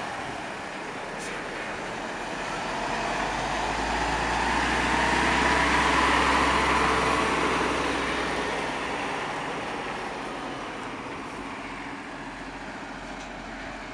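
Semi-trailer truck driving past: its engine and tyre noise grows louder, peaks about halfway through, then fades as it moves away.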